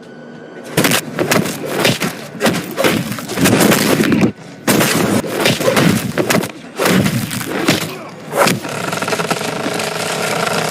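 Fight sound effects: a rapid, loud series of punches, thuds and crashing, breaking impacts, with short breaks about four and seven seconds in. Near the end a steady ringing tone with several pitches runs under the hits.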